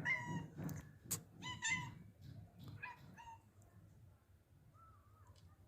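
A cat giving short, high meows, about three in quick succession in the first three seconds and a faint one near the end.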